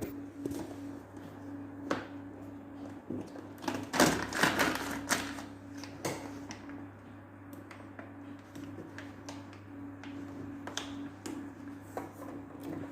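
Scattered clicks, taps and knocks of hands and tools handling the plastic parts and wiring of a washing-machine timer being fitted, busiest about four seconds in, over a steady low hum.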